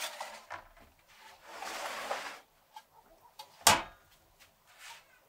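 A raw camel head being handled in a large aluminium pot: a stretch of rubbing and scraping, then one sharp knock about three and a half seconds in.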